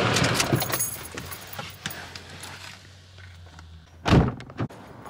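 Small clicks and handling noises, then a car door shutting with a heavy thud about four seconds in, followed by a lighter knock.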